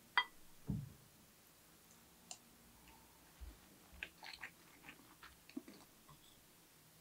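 Metal spoon clinking and scraping against a ceramic bowl while scooping egg fried rice, with soft chewing. A sharp clink comes near the start, then a dull thump, and a run of small clicks and scrapes about four to five and a half seconds in.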